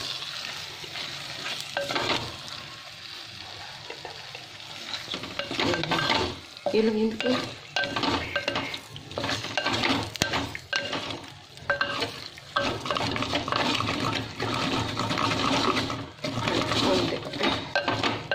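A wooden spatula stirs and scrapes a wet mix of chopped tomato, onion and potato in a clay cooking pot, in repeated strokes, with the food sizzling as it cooks.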